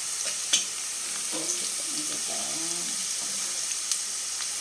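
Sliced bitter gourd sizzling steadily in hot oil in a steel pan while a steel ladle stirs and scoops it, with a few sharp clicks of the ladle against the pan, loudest about half a second in. The gourd slices are fried light brown, ready to be lifted out.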